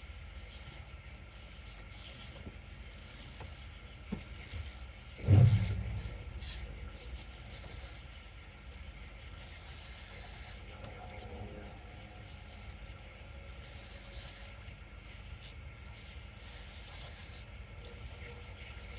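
Night insects, crickets by their sound, chirping and trilling in repeated high pulses, over a low steady background rumble. A single loud, dull thump comes about five seconds in.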